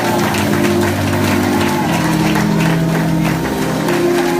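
Instrumental church music without voice: sustained chords held and then changed about halfway through, over a steady beat of sharp taps.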